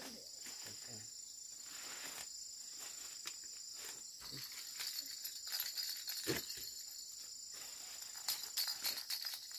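Steady high insect chorus, with scattered clicks and rustles that are loudest near the end.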